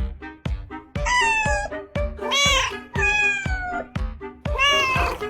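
A cat meowing in four long, drawn-out calls, one of them rising and then falling, over background music with a steady beat.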